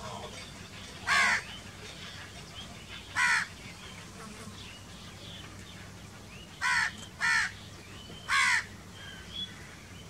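House crow cawing: five short, harsh caws, spaced out, with two of them close together about seven seconds in.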